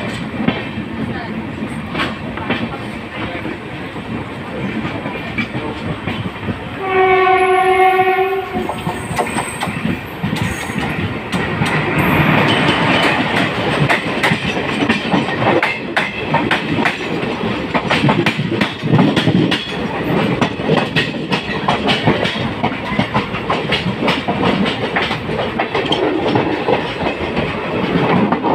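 Janshatabdi Express train running, with a steady rumble and the clickety-clack of wheels over rail joints. About seven seconds in, the locomotive horn sounds once, a single held note of about a second and a half, and the running grows louder from about twelve seconds in.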